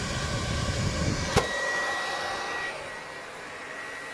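PlayStation 4 Pro cooling fan running loud with a steady rushing noise, like a vacuum cleaner: the sign of its processor overheating. A single sharp click comes about a second and a half in, and after it a faint steady whine sits under the fan noise, which eases slightly near the end.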